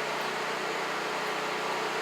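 A steady mechanical noise: an even hiss with a faint low hum under it, unchanging throughout.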